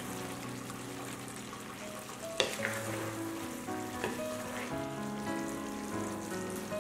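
Chicken and spinach curry sizzling in a pan while a wooden spatula stirs it, with one sharp knock a little over two seconds in. Soft background music with held notes plays underneath.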